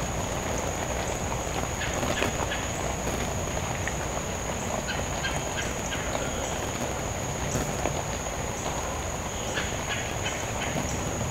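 Steady high-pitched insect chorus over a low rumbling background, with scattered faint clicks.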